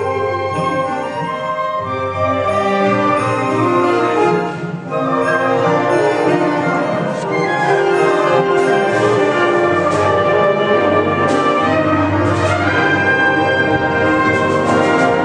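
A wind ensemble playing, with brass and woodwinds holding chords, a brief drop in loudness about a third of the way in, and percussion strikes through the second half.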